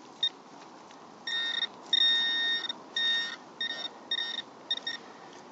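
Handheld metal-detecting pinpointer probe beeping in short, uneven bursts of a steady high tone as it is worked through the soil of a dug hole, signalling buried metal close to its tip.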